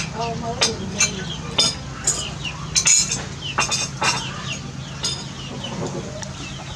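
Chickens clucking, with many short falling chirps and scattered sharp clicks and clinks.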